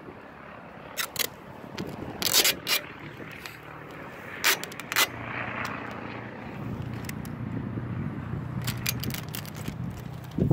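Clear tape being pulled off the roll and laid onto a car headlight: several short, sharp rips and crackles in clusters, with quieter rubbing between them.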